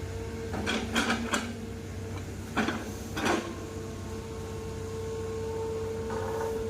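Excavator engine running steadily with a constant whine, and sharp metallic clanks from the machine about five times in the first few seconds.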